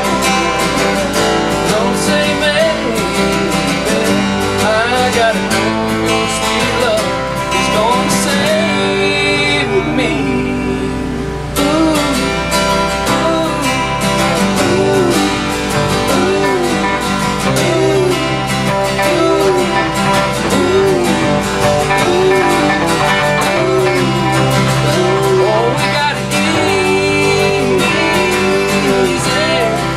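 Acoustic guitars strummed together with an electric guitar in a country-rock jam, a melody line rising and falling over the chords.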